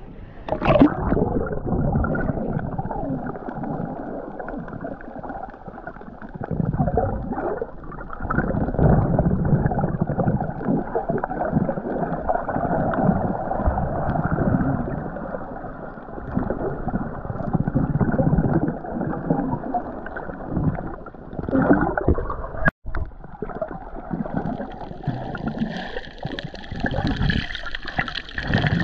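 Muffled water sounds recorded through a camera's waterproof housing: sloshing and gurgling that swell and fade unevenly. Near the end, after a brief break, the sound turns brighter and fuller.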